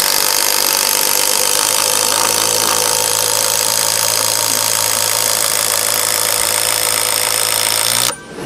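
Makita cordless impact driver hammering a 20 cm screw into stacked wood, running steadily for about nine seconds. It cuts off suddenly about eight seconds in as the screw is driven home.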